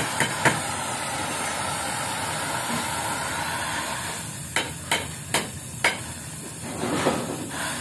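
Oxy-acetylene welding torch hissing steadily as it tack-welds a steel muffler seam. A few sharp clicks at the start, and four more, about half a second apart, a little past the middle.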